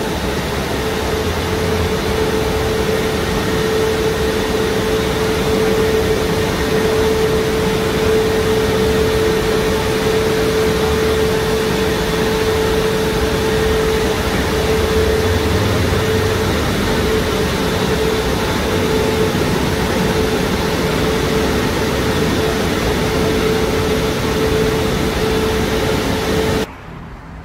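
Dryer blowers of a Christ Quantus rollover car wash running in the drying cycle: a loud, steady rush of blown air with a steady hum. The sound drops off abruptly shortly before the end.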